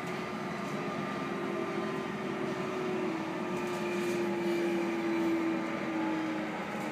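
Cabin noise of a London Underground 1996 Stock Jubilee line train in motion: a steady rumble from the wheels and running gear, with a faint motor whine slowly falling in pitch.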